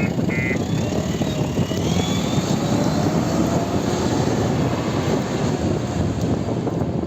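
Heavy machinery engine running with a loud, steady rumble. A reversing alarm beeps about twice a second and stops about half a second in.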